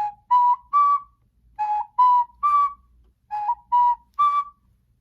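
A ceramic whistle blown in three groups of three short notes, each group stepping up in pitch, in a 'you, me, us' rhythm.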